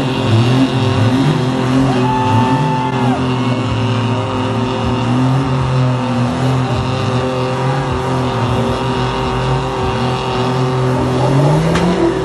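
Lifted mud truck's engine running hard under load in a tug pull, its pitch wavering up and down and then climbing near the end.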